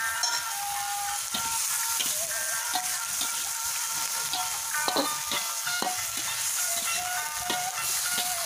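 Vegetables sizzling as they are stir-fried in a metal wok, with the metal spatula scraping and clicking against the pan many times, over background music.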